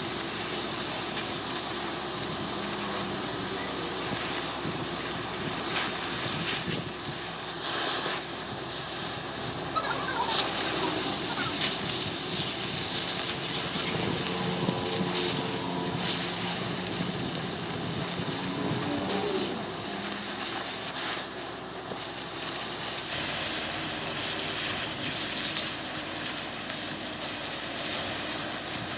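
Steady hissing noise that dips briefly and changes in tone about three-quarters of the way through.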